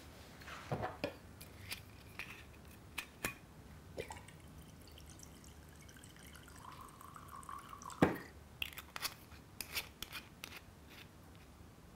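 Whisky poured from a glass bottle into a glass tumbler, the liquid running into the glass for about a second and a half near the middle, with scattered small clicks of glass and a sharper knock about eight seconds in.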